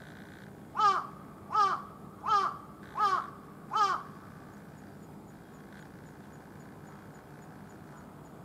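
A crow cawing five times in an even series, about one caw every three-quarters of a second, each caw slightly falling in pitch.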